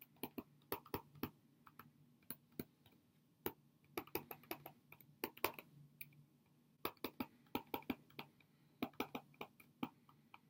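Stylus tapping and ticking on a tablet's writing surface during handwriting: a faint, irregular run of short clicks.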